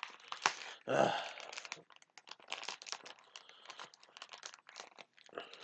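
Packaging crinkling in short, irregular crackles as it is carefully opened by hand, with a brief voice sound about a second in.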